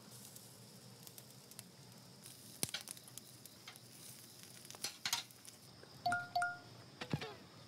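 Faint crackling and scattered ticks from pork belly roasting over charcoal. About six seconds in come two short, bright chime notes in quick succession.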